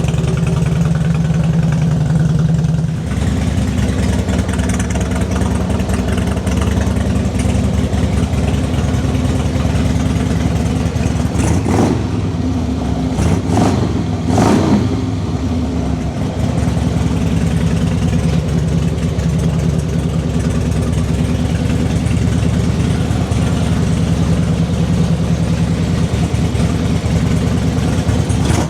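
A 2002 Harley-Davidson Road King's V-twin engine idling steadily, its note changing about three seconds in, with a few sharp knocks around the middle. It is running after starting with a battery charger connected, a sign the no-start was a weak battery rather than the starter.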